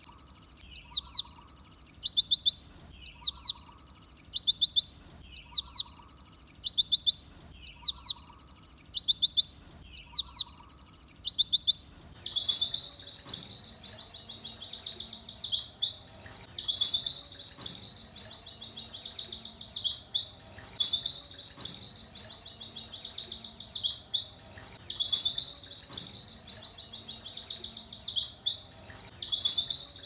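White-eye (pleci) singing a dense, canary-like song of fast trills. The same short phrase repeats about every two seconds, then about twelve seconds in it changes to a longer, denser phrase repeated about every four seconds.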